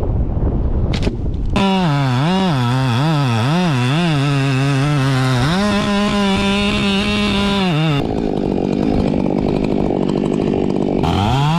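Chainsaw cutting a tree, its engine pitch swinging up and down over and over as the throttle and load change, then holding steady for a few seconds. Near the end it drops and climbs again.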